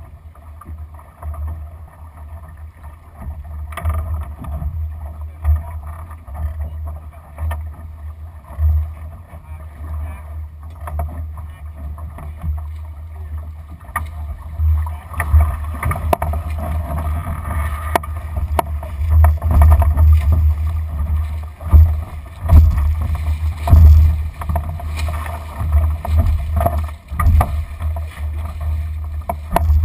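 Wind buffeting the microphone in uneven gusts, over water rushing along the hull of a Lightning sailing dinghy under sail, with a few faint knocks from gear aboard.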